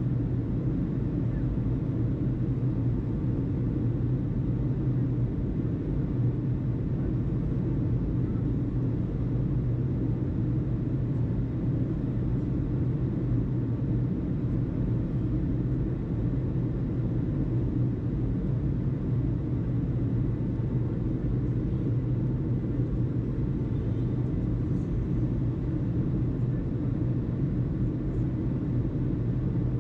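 Steady low rumble, even and unchanging throughout, with no radio voices.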